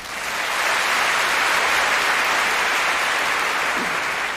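A concert hall audience applauding: a steady wash of clapping that swells quickly, holds, and dies away near the end.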